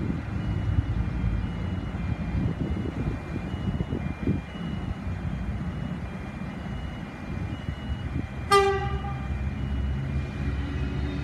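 Level crossing electronic bells ringing in a steady repeating two-note pattern over a low rumble. About eight and a half seconds in, the approaching V set electric train gives one short toot of its horn. Its low running sound builds near the end.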